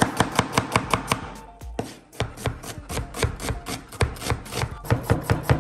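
Chef's knife rapidly chopping onion on a cutting board, about five or six quick knocks a second. The chopping breaks off briefly about two seconds in, then picks up again.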